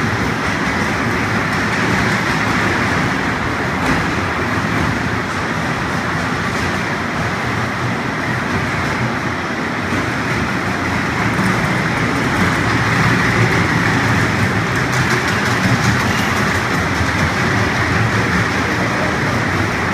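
Kids' ride train running on a steel track, its cars and wheels giving a steady mechanical running noise.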